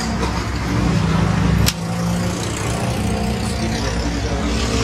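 A single sharp metallic click about two seconds in, as the Safari 150 air rifle is closed up after loading, over a steady low engine-like rumble.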